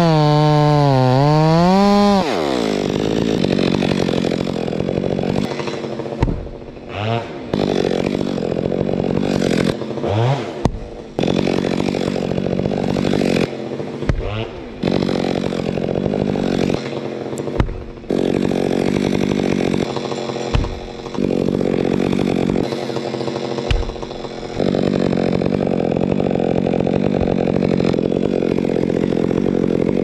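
Gas chainsaw running at full throttle as it cuts through a fir trunk, its pitch wavering under load. About two seconds in the pitch drops sharply and the saw runs on at a lower, steadier speed, with a few brief revs and knocks.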